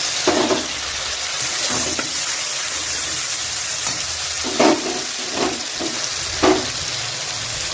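Tomatoes, green chillies and cumin seeds sizzling in hot oil in a kadai, a steady frying hiss. A few short scrapes of stirring against the pan come about a quarter of a second in and again three times in the second half.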